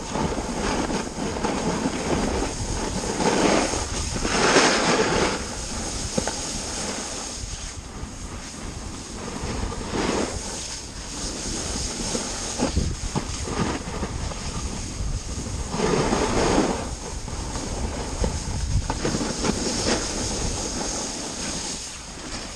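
Snowboard sliding and carving down groomed, packed snow, a continuous scraping rush that swells at each turn, several times through the run. Wind rushes over the camera's microphone.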